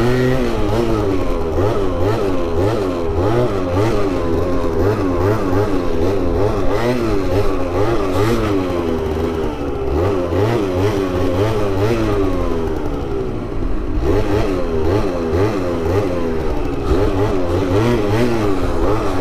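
Two-stroke scooter engine running loud, revving up and down over and over, its pitch rising and falling about once or twice a second.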